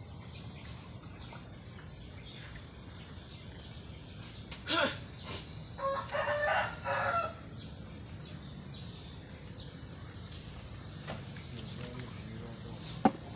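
A rooster crowing once, about six seconds in, with a shorter call about a second before, over a steady high-pitched chorus of crickets. A single sharp knock near the end.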